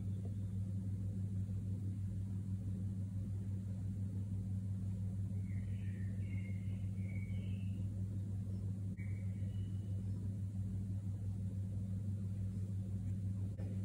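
Steady low hum, with a few faint short high squeaks about halfway through.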